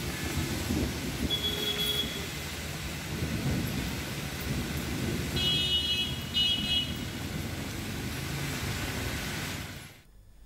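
Heavy rain falling on a city street with traffic rumbling past, and two short high tones around the middle. The sound cuts off suddenly a little before the end.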